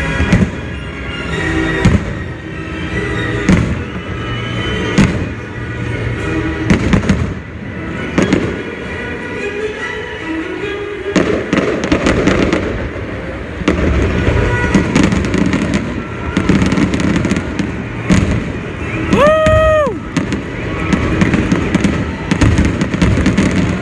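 Aerial fireworks bursting in a rapid string of bangs and crackles, over music playing on a sound system. About 19 seconds in, a single pitched tone sounds for about a second.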